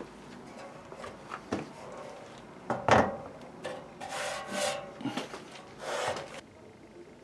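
Old sheet-metal beer crate being handled and shifted on a wooden tabletop: a few knocks, the loudest about three seconds in, then two stretches of scraping as it slides.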